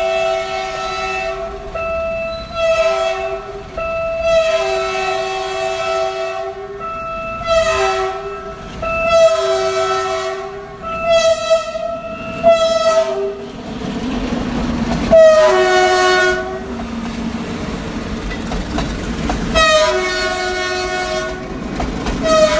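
Diesel locomotive's two-note chord horn (E5 over G4) sounded over and over in short and long blasts, with a gap of a few seconds past the middle. Wheels clatter over the rail joints as the train passes.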